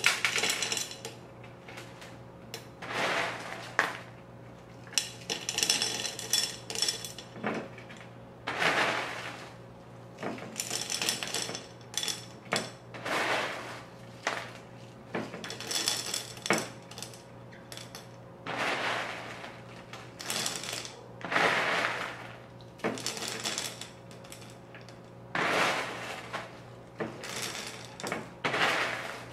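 LECA clay pebbles dropped by the handful into a glass vase, rattling and clinking against the glass in short bursts every couple of seconds. A steady low hum runs underneath.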